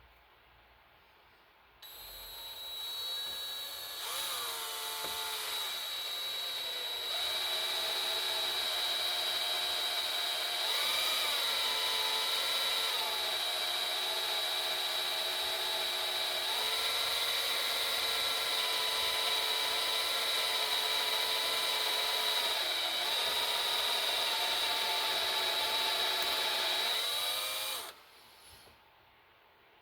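Electric drill boring out a broken stud in a cast-iron engine block: it starts about two seconds in and runs with a high motor whine, its speed shifting a few times, then stops shortly before the end.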